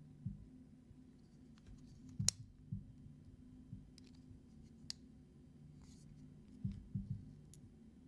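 Faint, scattered small metal clicks and soft knocks as folding-knife parts are handled and fitted together during reassembly, the sharpest click about two seconds in.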